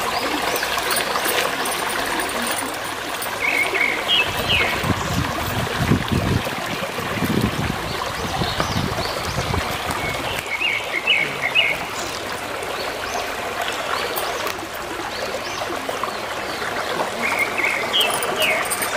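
Shallow stream water running and trickling over rocks, with short high chirps three times, several seconds apart.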